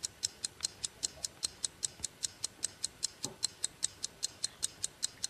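Ticking-clock countdown effect, quick, even ticks about four or five a second.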